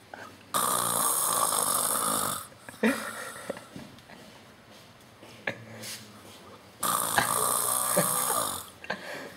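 A sleeping boy snoring very loudly: two long, harsh snores of about two seconds each, some six seconds apart, with quieter breathing between them.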